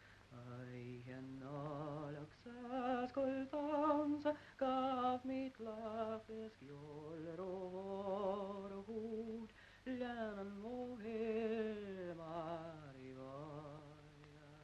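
Slow singing with strong vibrato, long held notes gliding up and down between pitches.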